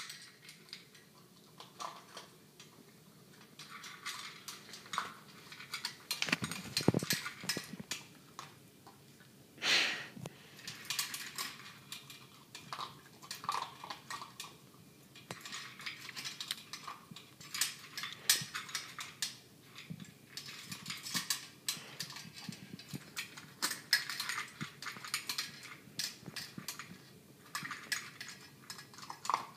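Cairn terrier puppy eating quickly from a metal bowl: a steady run of irregular clinks, rattles and scrapes against the bowl, with a louder clank about ten seconds in.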